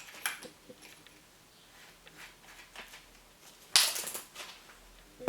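Handling noise: a few light clicks and knocks, then one louder clatter about four seconds in. No motor is running.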